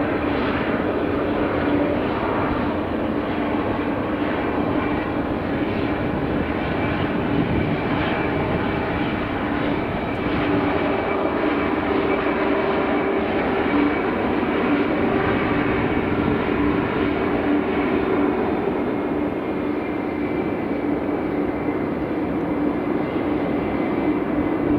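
Airbus A321 airliner's jet engines running, a loud, steady noise with a constant low hum and a faint high whine throughout.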